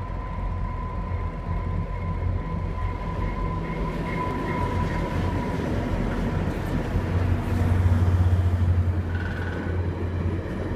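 Train rumbling low and steady, swelling louder a little after seven seconds, with a thin steady whine that fades out about halfway through and a short higher whine near the end.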